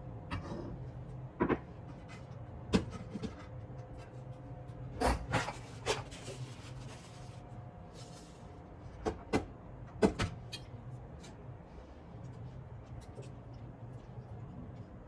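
Kitchen handling noises: scattered clicks and knocks of things being picked up and set down, a cluster about five seconds in and the loudest knock about ten seconds in, over a steady low hum.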